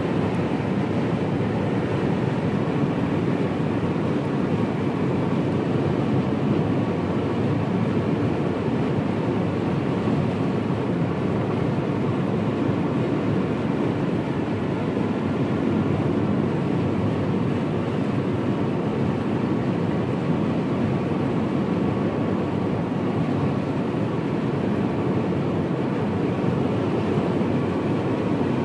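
Steady road and engine noise inside the cabin of a car driving at highway speed.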